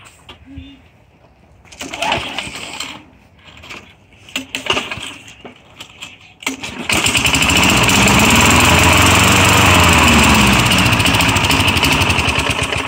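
Craftsman push mower's 4.5 hp Tecumseh engine being pull-started: a few short sputtering pulls on the recoil starter, then the engine catches about seven seconds in and runs loud, its speed rising and falling before it drops off near the end.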